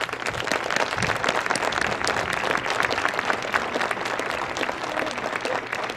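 Audience applauding, a dense crowd of clapping hands that starts as the director signs off and tapers slightly near the end.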